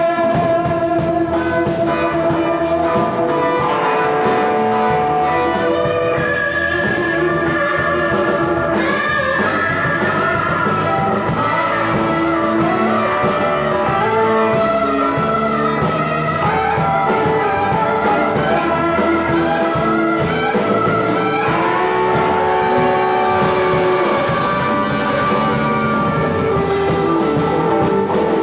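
Live blues band playing an instrumental passage on pedal steel guitar, electric guitar, electric bass and drum kit, with long held notes over a steady drum beat.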